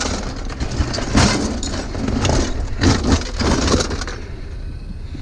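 Scrap items knocking, clattering and scraping as they are shoved into place in a loaded vehicle, a run of knocks for about four seconds before it quiets, with a steady low rumble underneath.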